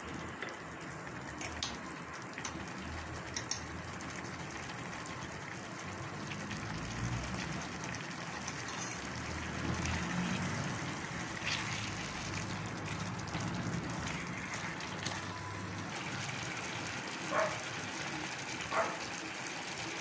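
Chicken curry cooking in an aluminium pot with a steady hiss of bubbling gravy, stirred with a spoon that clinks against the pot a few times.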